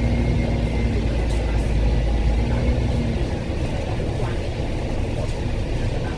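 Interior noise of a Hong Kong double-deck bus on the move: a steady low rumble of engine and road noise heard from inside the cabin. The deep engine hum eases a little about halfway through.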